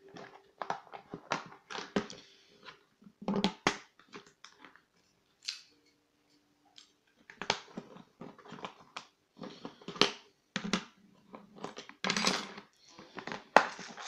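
Irregular clicks, taps and clatter of hands at work: a plastic compartment box being handled and a brass lock cylinder and metal tools such as a plug follower being picked up and set down, as the picked lock is taken apart.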